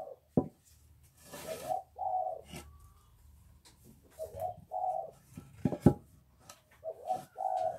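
A dove cooing in three short phrases of repeated low notes, with sharp knocks about half a second in and twice near six seconds in.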